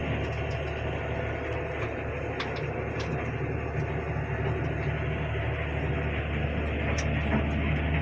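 John Deere 6210R tractor's six-cylinder diesel engine running steadily under load, heard from inside the cab while the tractor pulls an 8 m roller. A few faint ticks are heard over it.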